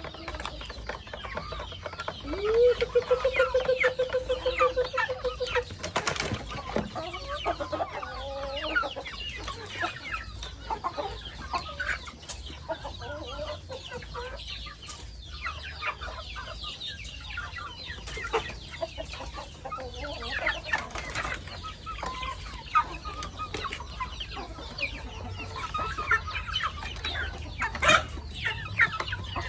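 Young chickens cheeping and clucking over their feed, with many short high calls throughout. One call rises and then holds steady for about three seconds near the start. There are sharp knocks about six seconds in and near the end.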